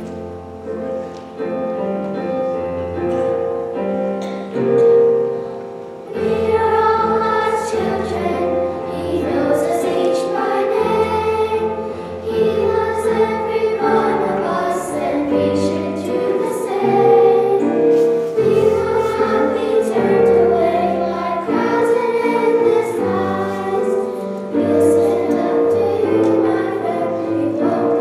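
Church music: a group of voices singing together with instrumental accompaniment. The voices come in about six seconds in, after a short instrumental opening.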